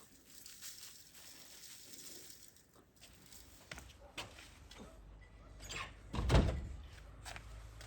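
A door thudding shut about six seconds in, after faint rustling and small clicks; a low steady rumble sets in shortly before it.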